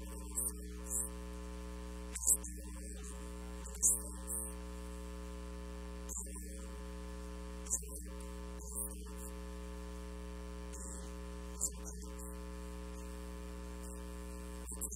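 Steady electrical mains hum, a stack of level tones, with brief faint high hissy blips every second or two.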